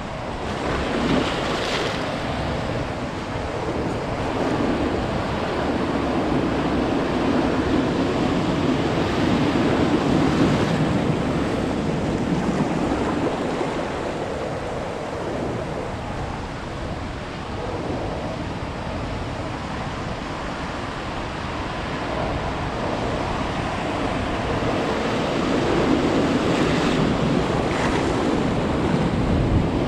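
Ocean surf: waves breaking and washing up a beach, a continuous rushing that swells louder and eases off over several seconds at a time.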